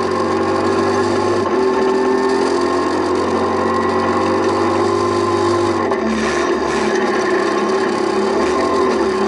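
Rally car engine running hard at a steady high pitch, heard inside the cabin over rough gravel road noise; the engine note changes about six seconds in.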